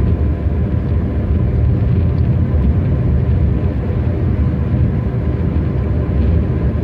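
Steady low rumble of a car's engine and tyres on the road, heard inside the cabin of the moving car.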